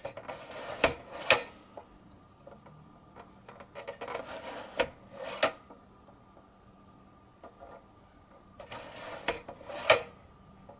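View-Master stereoscope viewer's advance lever worked three times, about four seconds apart: each time a short plastic scraping slide ending in sharp clicks as the reel turns to the next picture.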